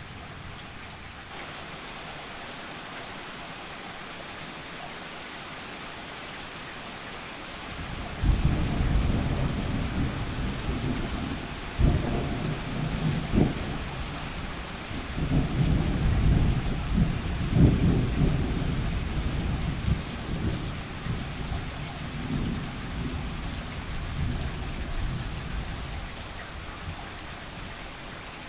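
Steady rain falling, then about eight seconds in a long peal of thunder begins: a deep rumble broken by several sharper cracks that rolls on for over fifteen seconds and fades away near the end, with the rain still falling.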